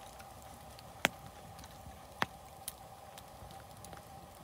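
Campfire of split firewood burning and crackling, with a few sharp pops: the loudest about a second in and another just after two seconds. A faint steady hum runs underneath.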